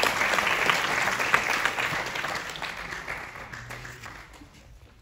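Audience applauding, a dense patter of many hands clapping, loudest over the first couple of seconds and then dying away near the end.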